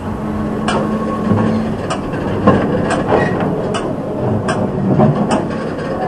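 Case 230 square baler's needle and knotter mechanism being cycled through a tying stroke: irregular metallic clanks and clicks, roughly one every half second to second, with a brief low hum in the first couple of seconds.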